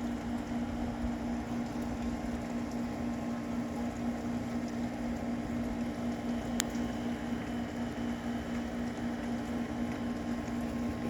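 A steady low mechanical hum over a constant background hiss, with one sharp click about six and a half seconds in.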